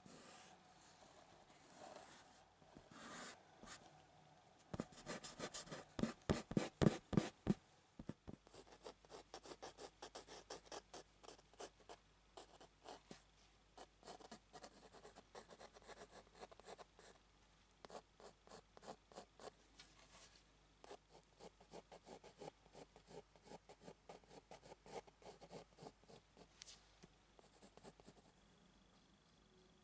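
Graphite pencil scratching across textured, not hot-pressed watercolour paper in quick back-and-forth shading strokes, several a second. The strokes are heaviest and fastest about five to eight seconds in, then continue lighter and softer.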